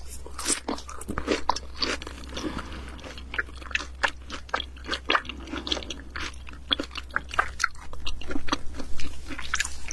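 Close-up chewing and biting of food: irregular wet clicks and soft crunches of a mouth eating, over a steady low hum.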